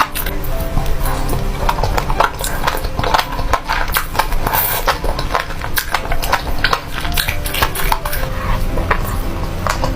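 Close-miked eating sounds: dense, irregular wet clicks and smacks of chewing spicy noodles and enoki mushrooms.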